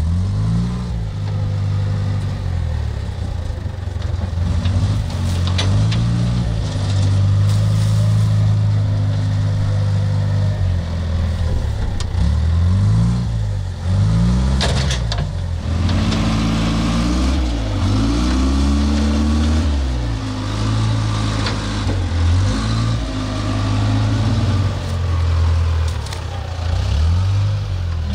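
Wheel loader's diesel engine running, its revs rising and falling again and again as it works.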